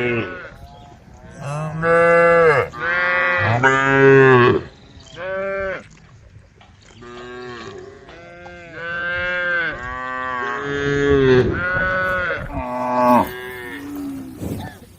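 A herd of cows mooing, long calls one after another and sometimes overlapping, as the cows call to the herd.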